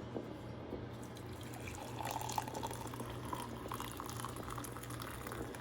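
Hot homemade ginger tea being poured through a mesh sieve into a cup, liquid splashing and trickling, a little louder from about two seconds in.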